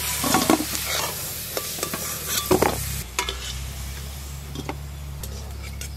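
Metal spatula scraping and clinking against a metal karai as fried potato wedges are lifted out, over the sizzle of hot frying oil. The scraping strokes stop about three seconds in, and the sizzle then goes quieter with a couple of light clicks.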